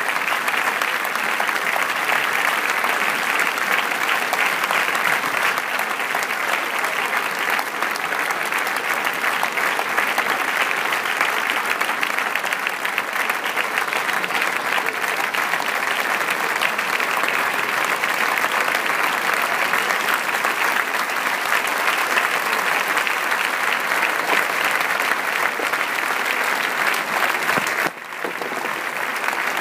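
Large theatre audience applauding steadily and densely at a curtain call, with a brief dip in level near the end.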